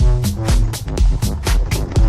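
Electronic dance music with a steady four-on-the-floor beat: a thumping bass drum, hi-hats and held synth chords.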